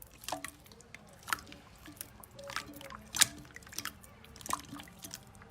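Slime being squeezed and poked by hand: scattered wet clicks and small sticky pops, the loudest a little past three seconds in.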